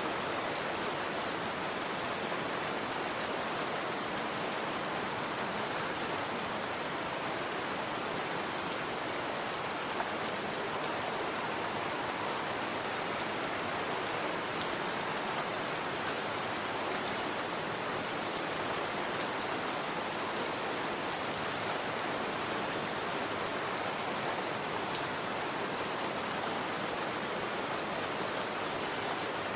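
Heavy rain falling steadily, with many individual drops splashing and ticking on a surface.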